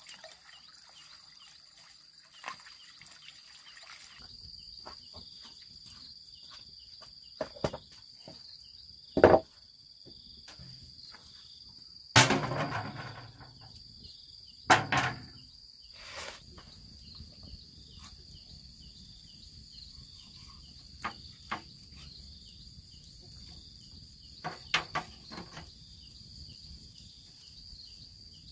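A steady high drone of insects, with scattered sharp knocks and clatters as a wooden chopping board and a metal tray are handled. The loudest are a knock about nine seconds in and a clatter about twelve seconds in that rings on briefly. Water runs from a hose into a basin in the first few seconds.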